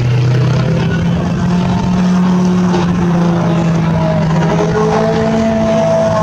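Ferrari V8 sports cars driving on a race track, with the engine note climbing in pitch as a car accelerates away.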